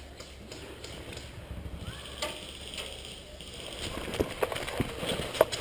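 Rustling and handling noise with scattered short, sharp clicks and knocks, denser and louder in the last second and a half.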